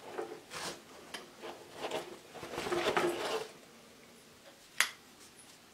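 Rustling and scraping as a Flycam DSLR Nano handheld stabilizer is drawn out of the fitted foam cutout in its case, in several irregular strokes, followed by a single sharp click near the end.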